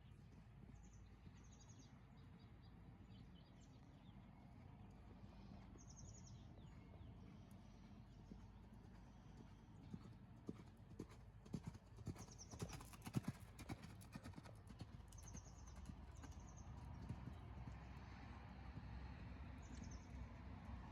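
Horse's hooves striking the ground: a quick, irregular run of knocks in the middle, over a faint steady background.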